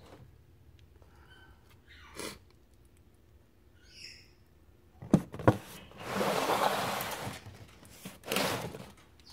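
Two sharp knocks about five seconds in, then a rustling noise for about a second and a half and a shorter rustle near the end, with a few faint short chirps before them.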